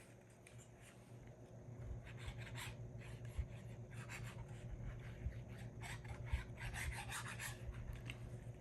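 Glue being rubbed along a paper page in short, uneven scraping strokes, faint at first and busier from about two seconds in, over a low steady hum.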